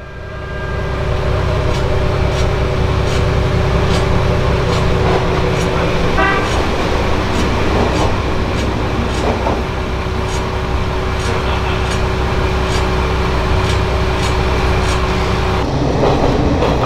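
Kanto Railway 2400-series diesel railcar running through the station close alongside, with a steady diesel engine drone and rumble and regular clicking of wheels over rail joints. It gives a short horn toot about six seconds in.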